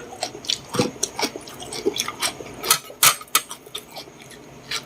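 Eating sounds: scattered sharp clicks and taps of cutlery on a plate, with chewing.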